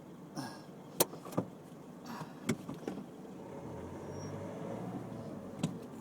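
A few sharp clicks and knocks inside a car, then a car's electric window motor running for about two seconds.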